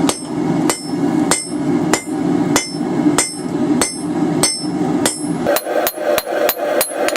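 Blacksmith's hammer striking hot steel on an anvil: about nine even blows a little over half a second apart, then a quicker run of blows near the end, each leaving a short high ring. A steady low rumble runs under the first part.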